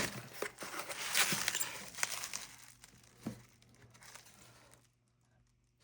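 Paper and plastic packaging crinkling and rustling as a mailed parcel is unwrapped, with one sharp click a little after three seconds, then it goes quiet.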